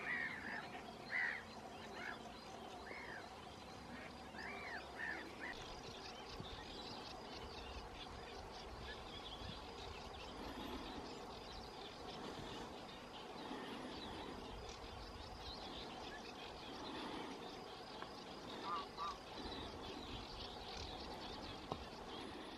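Birds calling in the open: a run of short, arching calls about once a second for the first five seconds, then fainter, overlapping calls of several birds, with a quick double call near the end.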